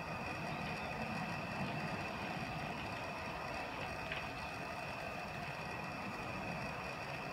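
Steady background rumble with a thin, constant high-pitched whine over it, and one brief short sound about four seconds in.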